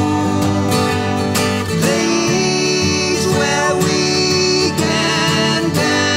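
Two acoustic guitars playing together with sung vocals over them.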